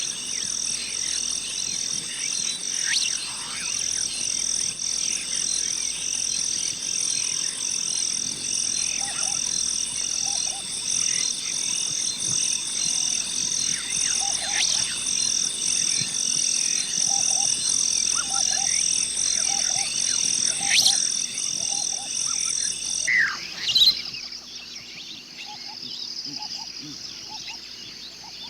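Jungle ambience: a loud, high-pitched insect chorus pulsing about three times a second, layered with scattered bird calls and short frog croaks. About 23 s in the pulsing chorus cuts off, leaving a quieter, steadier high drone. Just before that, a couple of louder calls are the loudest moments.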